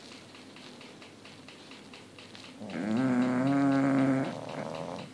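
Bulldog snoring: quiet breathing, then one loud, pitched snore about three seconds in that lasts about a second and a half and tails off.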